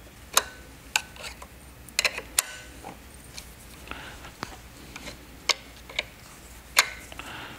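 Open-end wrench clicking against the hex nut of a pressure washer's high-pressure line at the pump head as it is fitted and tightened: about ten sharp metallic clicks, unevenly spaced, a few with a brief ring, the loudest near the end.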